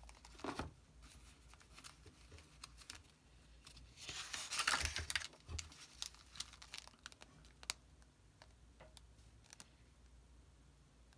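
Paper handling: the pages of an old booklet being turned, a crinkling paper rustle loudest for about a second a little after four seconds in, among scattered light clicks and taps.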